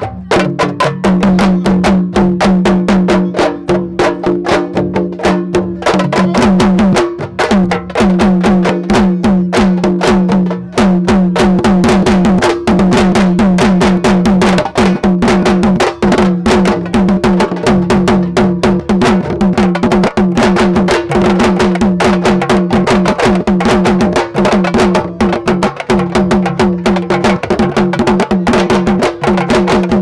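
Fast, dense drumming played for dancing: many rapid strikes close together, with a steady low tone running underneath.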